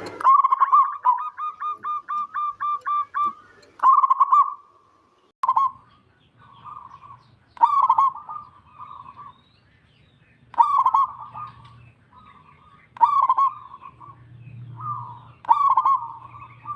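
Zebra dove (perkutut) cooing. It opens with a rapid run of about a dozen short coos, about four a second, then gives separate cooing phrases every two to three seconds.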